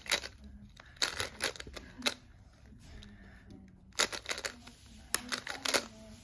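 GAN Angstrom speedcube being turned during a solve: quick clusters of plastic layer clicks in short flurries with brief pauses between them.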